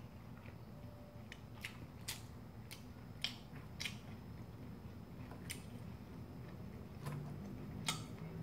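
Close-miked mouth chewing a mouthful of pasta, with a handful of short, crisp clicking bites spread irregularly through.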